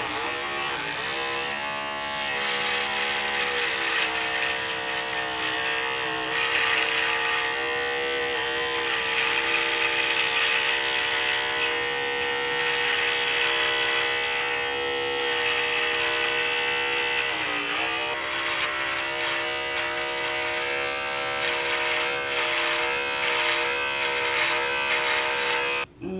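Electric hair clippers running with a steady buzz while shaving hair at the nape of the neck, the pitch dipping briefly twice, once just after the start and again about two-thirds of the way through.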